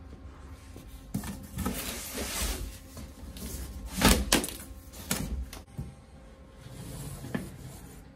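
A cardboard shipping box being opened by hand: its plastic strap is pulled off and the flaps are opened, with cardboard scraping and rustling and a sharp knock about four seconds in.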